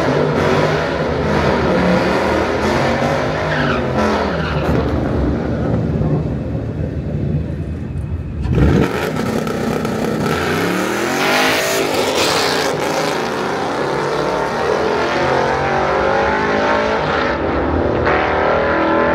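A Mustang's engine revving hard, rising and falling again and again, with tyres squealing under a dense hiss: a burnout. About halfway through the sound drops briefly, then jumps back loud as the revs climb again.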